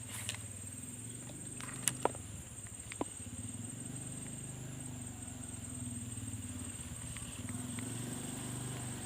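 A small motorcycle engine running steadily nearby, with a few sharp clicks in the first three seconds.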